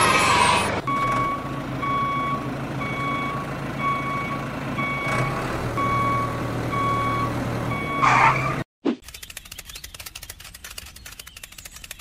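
Vehicle reversing alarm beeping evenly, about every 0.6 s, over a steady engine drone; both stop about 8.5 seconds in. Then a fast, dense run of clicks fills the last few seconds.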